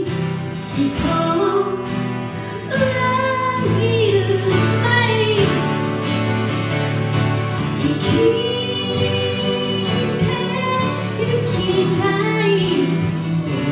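Acoustic folk-pop song played live: a woman singing the lead over strummed acoustic guitars, with men's voices joining in harmony.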